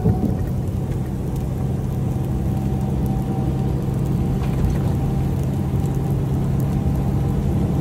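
Steady low drone of a semi truck's diesel engine and road noise heard inside the cab while cruising at highway speed.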